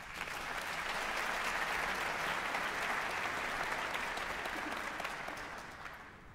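Audience applauding, rising quickly at the start and dying away near the end.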